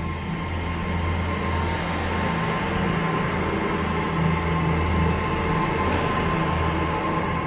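Class 802 bi-mode train pulling away on its underfloor diesel engines: a steady low engine drone with a thin steady whine above it, growing a little louder in the first seconds as the carriages pass.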